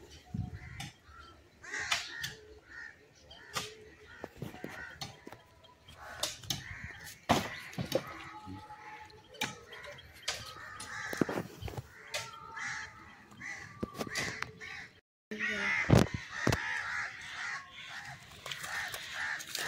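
Crackling and rustling of a plastic snack packet handled by a gray langur, many sharp clicks and crinkles. Repeated harsh calls run through it, loudest from about three-quarters of the way in.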